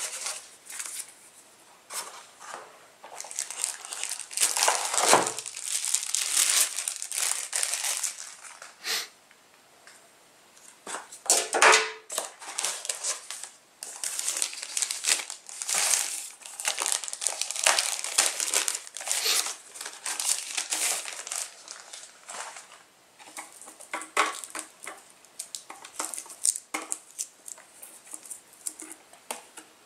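Router packaging being handled: plastic wrapping and paper rustling in irregular bursts as accessories are lifted out of a plastic packing tray, with a few sharper knocks of parts and tray against the table.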